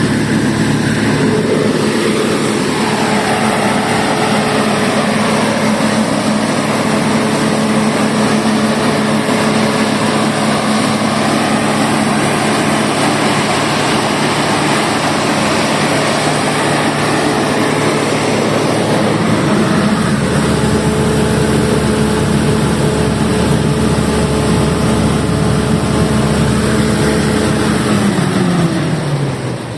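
150 kVA Deutz diesel generator set running steadily, then shut down near the end, its engine note falling in pitch and dying away.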